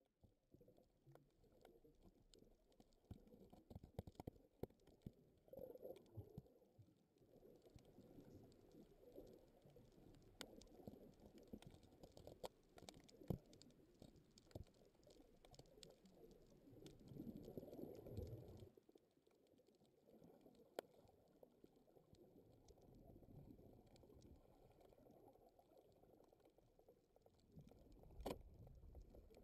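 Faint, muffled underwater sound heard through a camera's waterproof housing: a low, uneven rumble of moving water with scattered sharp clicks and crackles.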